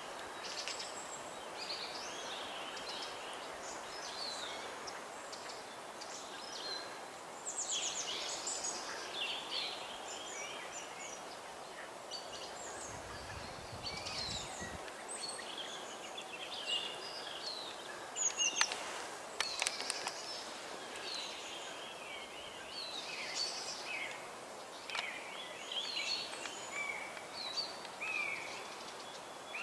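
Several wild birds singing and calling, short chirps and trills overlapping throughout, over a steady background hiss.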